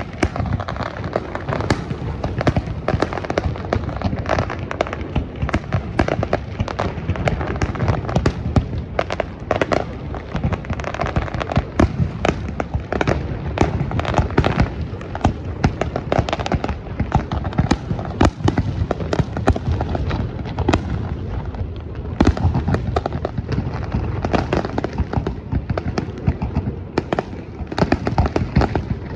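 Fireworks display going off in a continuous, rapid barrage of bangs and crackles, many a second without a break.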